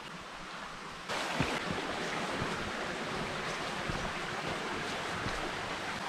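Steady rushing wind, starting abruptly about a second in, with a few dull low thumps under it.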